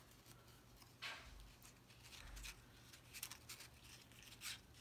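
Near silence, with a few faint rustles and light taps of cardstock pieces being handled and slid into place on a paper pop-up card.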